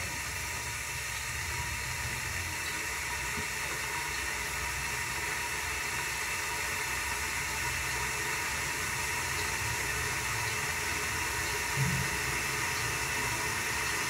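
Water coming to the boil in a stainless-steel electric kettle: a steady rushing hiss that slowly grows louder.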